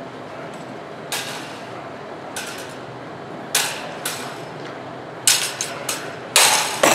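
Steel rapier blades clashing: about eight sharp metallic clinks, scattered at first and then coming in a quick flurry near the end.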